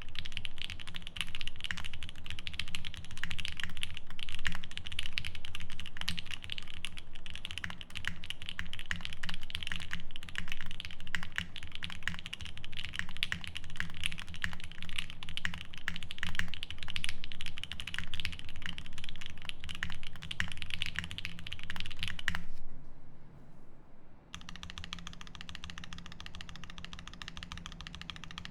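Fast, continuous typing on a custom 7V mechanical keyboard with lubed Durock L7 62g linear switches on a polycarbonate plate, under GMK keycaps. The typing stops about 22 seconds in, and a fainter steady sound follows.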